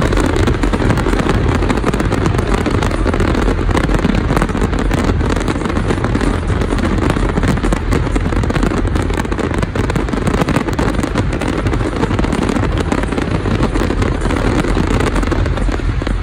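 Aerial fireworks going off in a dense, continuous barrage: many rapid, overlapping bangs and crackles with no pause, loud throughout.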